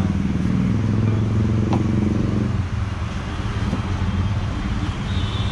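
An engine running steadily, a low even drone made of rapid firing pulses, with a brief click about two seconds in.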